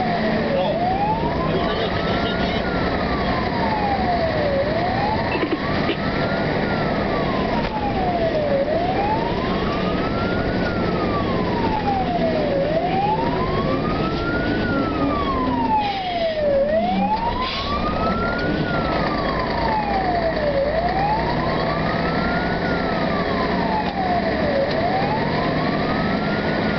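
Fire engine's wailing siren, rising and falling in a slow cycle of about four seconds, heard from inside the cab over the truck's steady engine and road noise.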